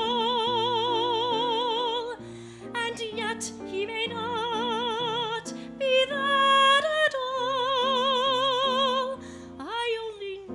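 A soprano singing a ballad over piano accompaniment: long held notes with wide vibrato between shorter sung phrases, with piano chords underneath.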